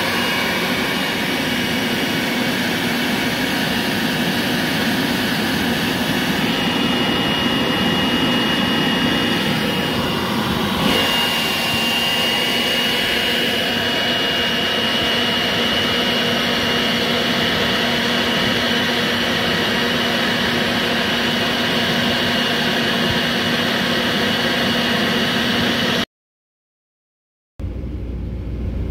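Milwaukee cordless battery blower running steadily: a rush of air with a thin high whine from the motor, which shifts slightly in pitch about eleven seconds in. The sound cuts off abruptly near the end, followed by a brief silence and then a low rumble.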